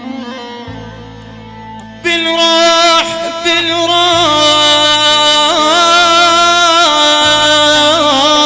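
Middle Eastern music: a held, ornamented melodic line comes in loudly about two seconds in, over a steady low drone.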